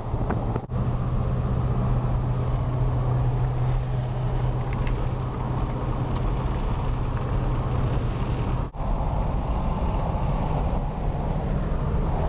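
A car driving, heard from inside the cabin: a steady low engine drone with road and wind noise. It breaks off for an instant twice, about a second in and past two-thirds of the way through.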